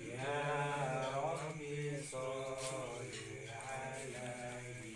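A man chanting an incantation in long, drawn-out phrases with a wavering pitch, broken by short pauses.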